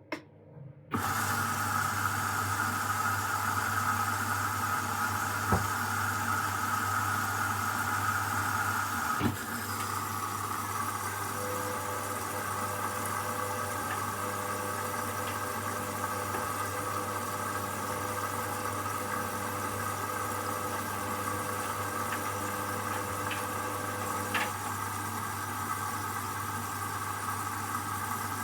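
Hoover washing machine starting its cycle: it comes on abruptly about a second in and runs with a steady rush of water and a low hum. There is a click about nine seconds in, after which it runs a little quieter.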